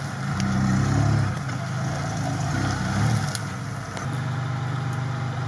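Lifted Toyota 4Runner on GAZ-66 axles, its engine running. The engine swells a little in the first couple of seconds, then settles to a steady note near the end.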